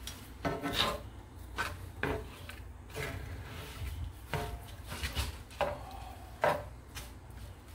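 A spatula scraping and pushing shrimp around a cast iron skillet: a series of short scrapes and knocks against the pan, about one or two a second.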